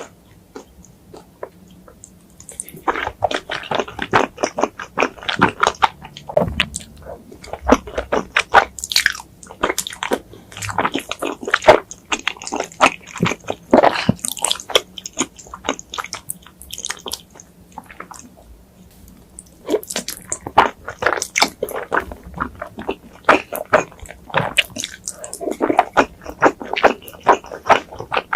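A person biting and chewing food close to the microphone, with crunchy bites. The chewing starts about three seconds in and pauses for a couple of seconds past the middle before going on.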